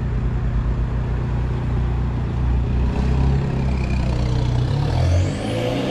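SEAT Ibiza 6L 1.9 TDI four-cylinder diesel running at idle through its new silencer-delete exhaust line, then pulling away about three seconds in, the engine note rising.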